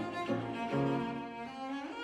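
Cello bowing a melody of changing notes, with grand piano accompaniment.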